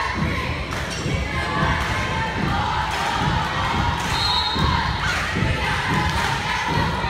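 Volleyball rally on a gym court: repeated dull thuds from the ball and players' feet on the hardwood floor, under a background of crowd chatter and voices.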